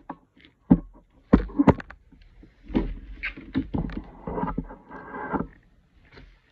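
Close handling noise: sharp knocks and taps, loudest a second or so in, then a stretch of clattering and rustling that stops near the end.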